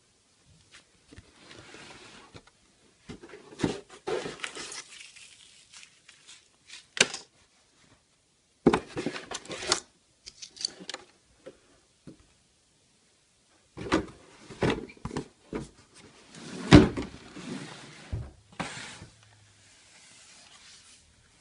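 Handling noises from unboxing: rustling of packaging with clunks and sharp knocks of hard parts being lifted and set down, in scattered bursts with quiet gaps, the loudest knock about two-thirds of the way through.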